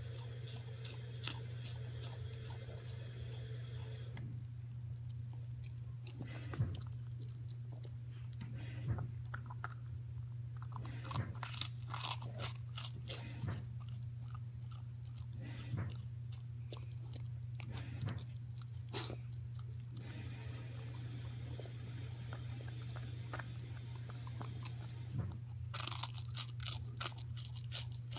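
A puppy chewing, with irregular small crunching and clicking mouth sounds, over a steady low electrical hum.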